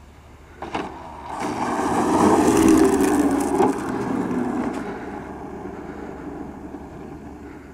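Schuebeler electric ducted fan of an RC BAE Hawk jet model, a rushing noise that swells to its loudest two to three seconds in and then fades. A sharp knock comes under a second in.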